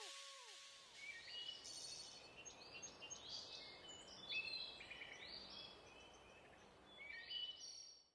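Faint high chirps, bird-like, scattered over a low hiss, starting about a second in and cutting off suddenly near the end. At the very start the last echoes of a falling electronic tone from the music fade out.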